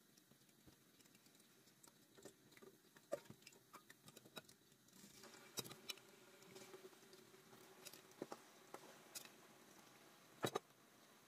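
Near silence with faint scattered clicks and light taps, a soft hiss coming up about halfway, and two sharper clicks close together near the end.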